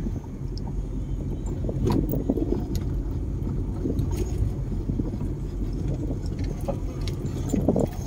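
Car interior noise while driving slowly on a rough dirt road: a steady low rumble of engine and tyres, with occasional small clicks and rattles from inside the cabin.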